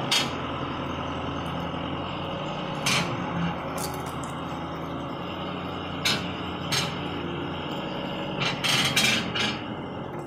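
International 8600 truck's diesel engine running steadily at low speed as the truck is moved, with a few sharp clicks and knocks over it, several close together near the end.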